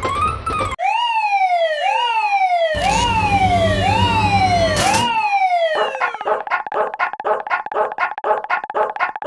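Synthesized level-crossing alarm sounds: a siren-like tone falling in pitch, repeated about five times a little under a second apart, with a low rumble under the middle repeats. Then a rapid pulsing electronic tone.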